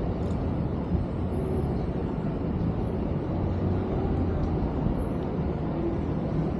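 Steady city street traffic: the low hum of car and bus engines and road noise, heard from a bicycle moving through the traffic.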